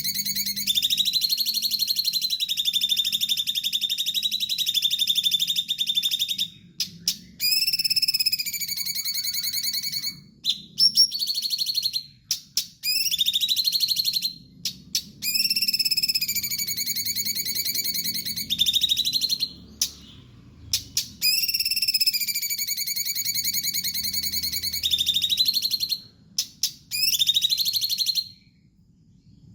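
A cucak cungkok songbird singing hard: long buzzy, trilling phrases, each held for several seconds, broken by short pauses.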